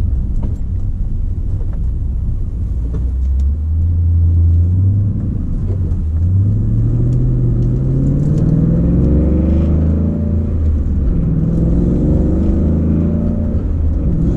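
Ford Mustang's engine heard from inside the cabin while driving with a manual gearbox. The engine note climbs with the revs and drops back at each upshift, about three times.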